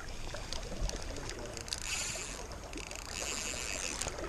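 Rushing river water, with knocks and clicks from a hand working a spinning fly reel while a hooked fish pulls line and the drag is being tightened. There are two short spells of high buzzing, about two and three seconds in.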